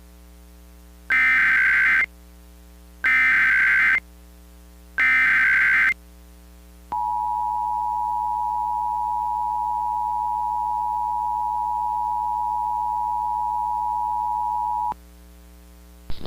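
Emergency Alert System activation: three short bursts of the SAME digital data header, each about a second long and a second apart, then the steady EAS two-tone attention signal held for about eight seconds. It heralds a Child Abduction Emergency (Amber Alert) broadcast.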